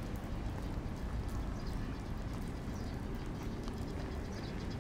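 Busy city street ambience: a steady low rumble with scattered light ticks and taps.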